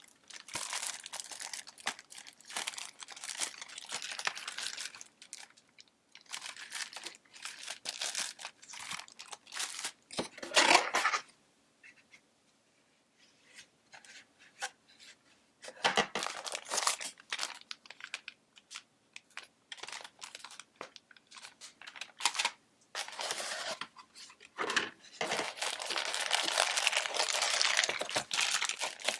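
Packaging being handled as a compact photo printer is unboxed: crinkling, rustling and tearing in irregular bursts, with the loudest rustle a little before halfway and a brief quiet pause shortly after.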